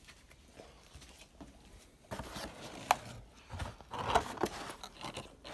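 Cardboard pizza box being opened and handled. Rustling and scraping start about two seconds in, with a sharp click about a second later.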